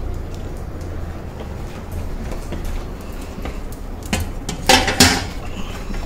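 Dishes clinking a few times over a low steady hum, one strike briefly ringing, between about four and five seconds in.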